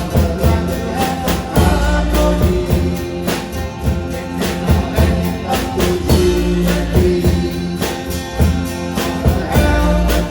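Music with a steady beat: a song with drums, bass and held pitched notes.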